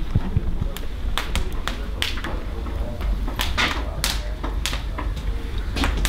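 Wood fire crackling in a fireplace: irregular sharp pops and snaps, some close together, over a low rumble.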